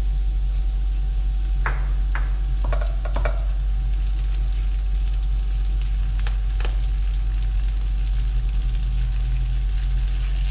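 Garlic, bird's-eye chillies and curry leaves sizzling in melted margarine in a non-stick wok as they are stir-fried until the leaves dry out. A spatula scrapes and taps the pan several times, mostly between about one and a half and three and a half seconds in and again twice around six and a half seconds. A steady low hum runs underneath.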